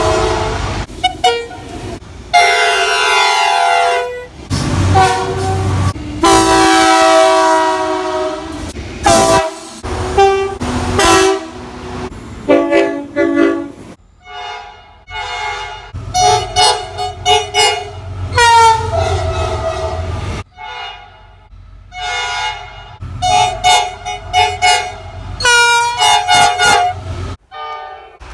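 Locomotive air horns sounding a series of blasts, each a chord of several tones. The first half holds two long blasts, there are a few shorter ones in the middle, and a quick run of short toots comes near the end. Around two-thirds through, one horn's pitch falls as it goes by, and the low rumble of the train runs underneath.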